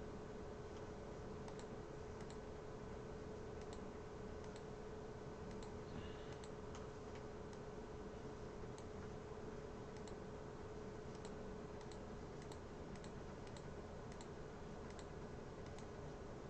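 Faint, irregular clicks of a computer mouse and keyboard, roughly one or two a second, over a steady low hum and background hiss.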